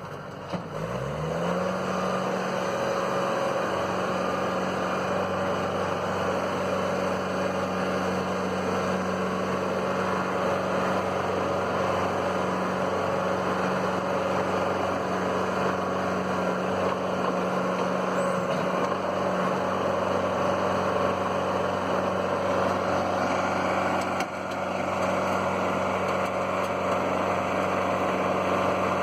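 Kubota tractor's diesel engine revving up near the start, then running steadily at high revs, with a brief dip in level late on.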